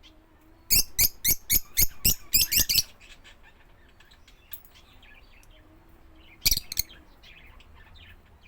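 Bird calling: a quick run of about ten sharp chirps, then fainter high chirps and two more sharp chirps near the end.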